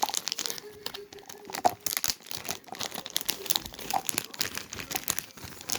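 Irregular crinkling and rustling with many small sharp clicks, like something crinkly being handled close by.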